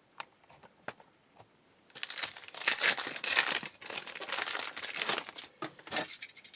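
A few light clicks, then from about two seconds in the plastic wrapper of a trading card pack is torn open and crinkled by hand.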